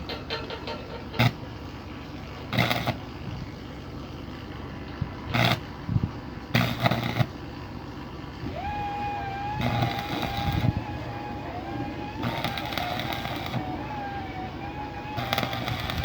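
Electric arc welding on a ship's steel deck, in a series of short welds of a fraction of a second to about a second each, with gaps between them.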